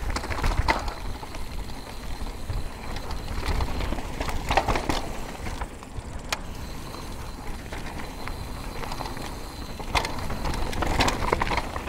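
Mountain bike descending a dirt and gravel trail: tyres rumbling over the surface and the bike rattling over bumps, with a couple of sharp clacks about six and ten seconds in.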